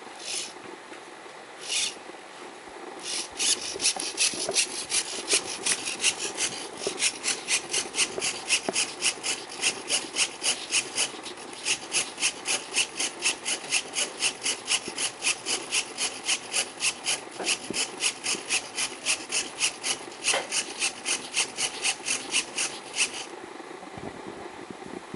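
A pen-plotting delta robot drawing with a felt-tip pen on card: rapid scratchy strokes of the pen tip and the servo-driven arms, about three a second. A couple of single strokes come first, then a steady run that stops abruptly near the end.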